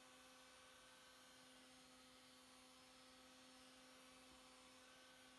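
Near silence, with the faint steady hum of a small battery-powered handheld fan running.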